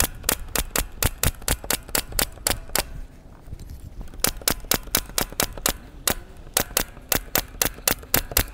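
Pneumatic brad nailer firing 1-inch wire nails into the wooden top bars of beehive frames: quick, even shots at about four a second, with a pause of about a second near the middle.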